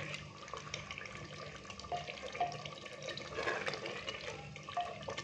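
Spoon stirring a watery pumpkin curry in a clay pot: a soft wet stirring sound with scattered light clicks of the spoon against the pot.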